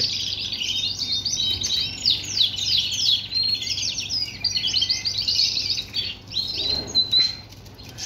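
Male canary singing: fast rolling trills and chirps in quick succession, with a short break near the end.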